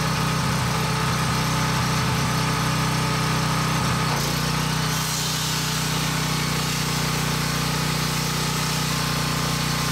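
Sportsman 4000 dual-fuel portable generator's small single-cylinder four-stroke engine running steadily under an electrical load of about 1.7 kW (14.5 amps), its note shifting slightly about four seconds in as it holds its speed under the load.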